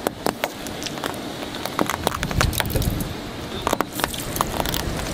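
Irregular crunching and crackling: a scatter of sharp clicks and snaps, something brittle being crushed.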